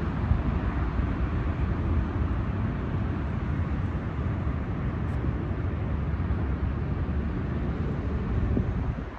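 Wind buffeting the microphone outdoors: a steady, low, rumbling noise that rises and falls slightly, easing a little near the end.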